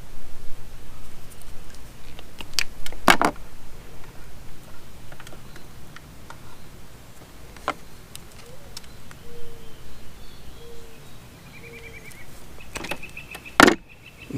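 Scattered clicks and knocks from hand tools and wiring being handled on an outboard's wiring harness, with the loudest knock near the end.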